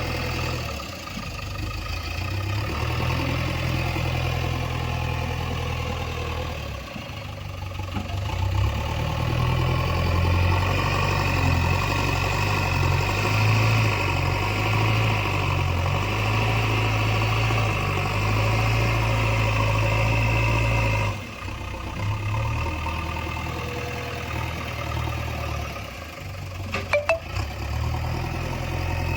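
JCB 3DX Eco Xcellence backhoe loader's diesel engine running, its revs rising and falling as the machine works, with a few sharp clanks near the end.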